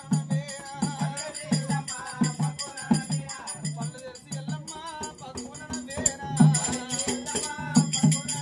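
Double-headed barrel drum beaten in a steady folk rhythm, with metallic jingling percussion and a voice singing over it.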